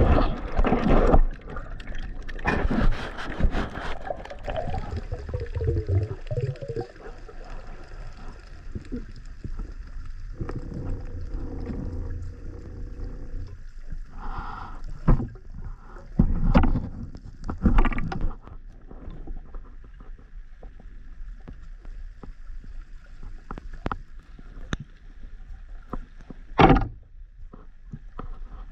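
Sea water sloshing and gurgling around the microphone, with irregular splashes and knocks.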